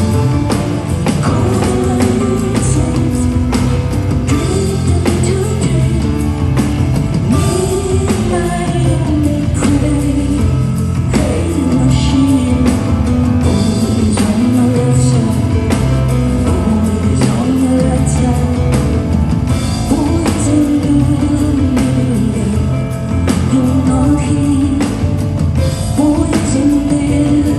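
Live rock band performing with a woman singing the lead vocal, over steady bass and regular drum hits.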